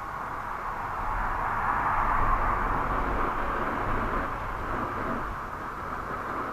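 A gust of wind rushing past the microphone and through the bushes, with low buffeting rumble; it swells about a second in and slowly eases off.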